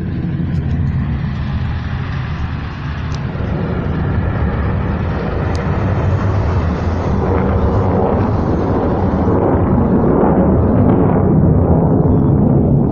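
Ballistic missiles' rocket motors roaring after launch: a loud, continuous deep rumble with a hiss on top, slowly growing louder.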